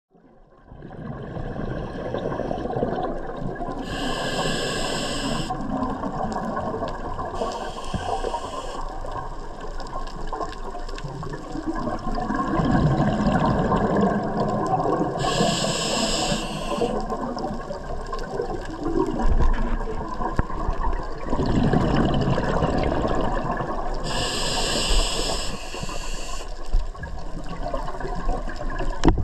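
Scuba regulator breathing heard underwater: a short hiss from the demand valve on each inhale, heard four times, and a low rumbling of exhaled bubbles in between.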